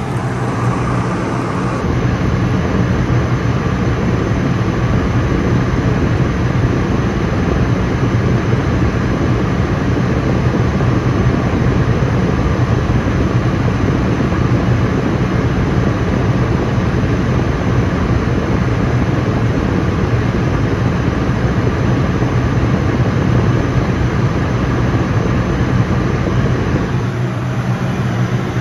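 Cabin noise of a Cirrus SF50 Vision Jet in flight, heard from the cockpit: a steady rush of air over the airframe with a low, even hum from its single turbofan engine.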